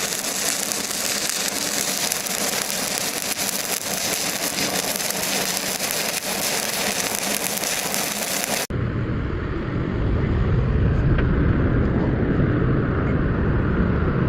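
Arc welding on iron plate: a steady, loud crackling hiss of the welding arc. About nine seconds in it cuts off suddenly and gives way to a steady low rumble.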